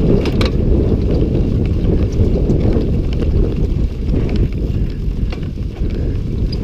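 Wind rumbling on the microphone of a GoPro riding on a mountain bike at speed down a dirt trail, mixed with tyre noise and scattered clicks and rattles from the bike.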